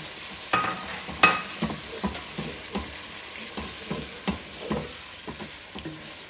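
Spatula stirring penne pasta through sauce in a hot frying pan: repeated scraping strokes against the pan over a steady sizzle. Two sharp clinks stand out about a second in.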